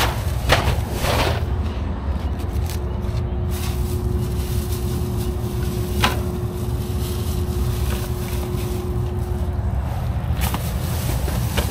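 Steady low rumble of an idling vehicle engine, with a thin steady hum over it that stops near the end, and a few sharp knocks scattered through.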